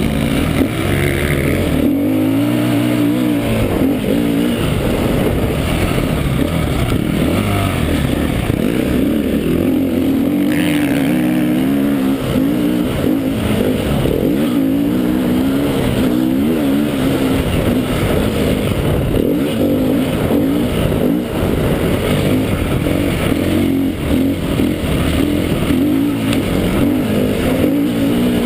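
KTM 350 EXC-F dirt bike's single-cylinder four-stroke engine being ridden hard around a motocross track, its revs rising and falling again and again with throttle and gear changes, recorded close up on board the bike.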